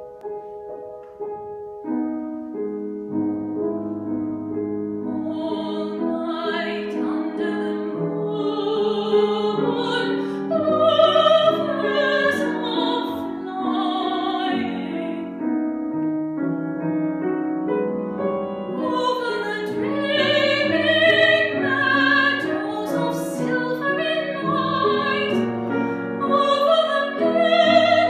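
Grand piano playing a short introduction, then a woman's classically trained voice enters about five seconds in, singing a classical art song with vibrato over the piano accompaniment.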